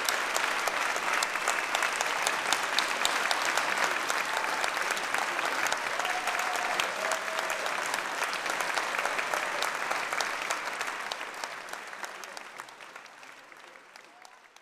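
A large audience applauding, a dense steady patter of many hands clapping that dies away over the last few seconds.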